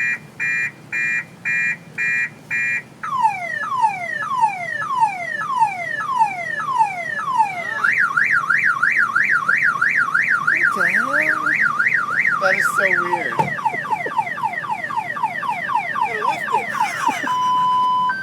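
Electronic car alarm siren cycling through its tone patterns: rapid beeps about three a second, then falling chirps about two a second, then a fast up-and-down warble, then quicker falling sweeps, changing to a slow high-low two-tone near the end.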